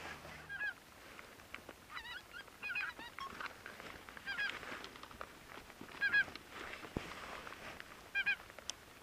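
Geese honking: short, high, repeated calls coming in clusters every second or two.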